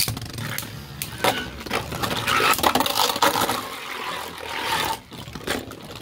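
A 3D-printed Beyblade and another Beyblade spinning and colliding in a plastic stadium. There is a loud hit at the very start, then rapid clacks and a grinding scrape that die down about five seconds in, leaving scattered clicks.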